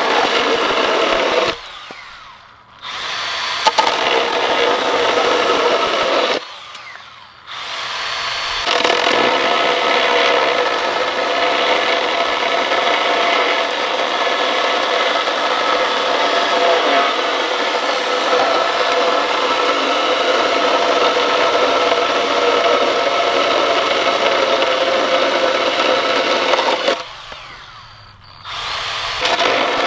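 Milwaukee M12 Fuel Hatchet 6-inch brushless cordless pruning saw cutting through a 4x6 timber: a steady motor whine over the rasp of the chain in wood. It stops and restarts three times, briefly about 2 s and 7 s in, and again near the end as the cut finishes.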